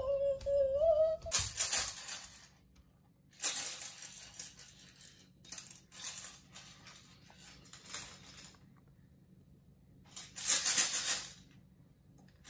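A toddler's brief high-pitched vocal sound, then a hand-held plastic toy rattled and clattered in three bursts, the last and loudest near the end.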